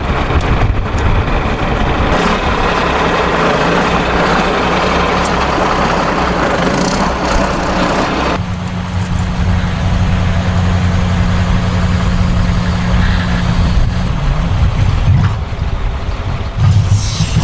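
Diesel engine running. About eight seconds in, a louder, noisier sound cuts off abruptly, leaving a steady low engine hum at idle.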